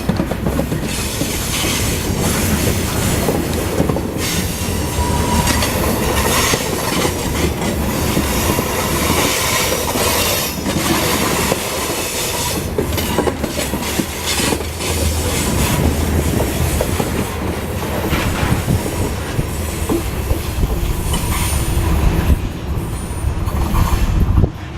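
Grain train's freight cars rolling past, with a steady loud rumble and irregular clanks and clatter from the wheels and couplings. A brief thin wheel squeal comes about five seconds in.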